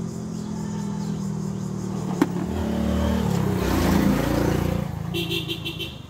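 A motor vehicle's engine running close by, growing louder to a peak about four seconds in and then fading away, with one sharp click about two seconds in. A short wavering call comes in near the end.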